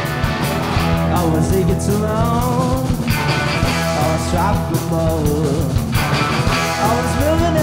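Rock band playing: electric bass holding low notes under drums and electric guitar, with a melody line that slides up and down in pitch.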